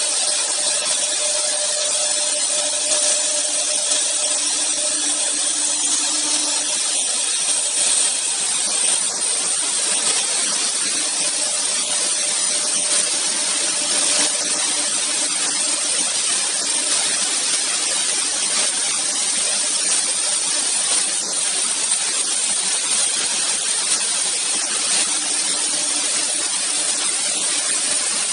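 AccTek AKM1325-2 double-head CNC router, both spindles routing panel patterns into a wooden board: a steady high-pitched cutting hiss with a faint hum beneath.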